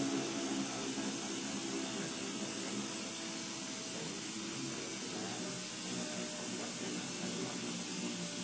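Power drill running with a sanding disc pressed against a plastic headlight lens, damp-sanding off the oxidised surface: a steady motor hum whose pitch wavers with the load, over a scrubbing hiss.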